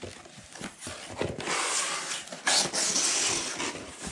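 A large mail parcel being handled: a few light knocks, then about two seconds of loud rustling and scraping of its wrapping.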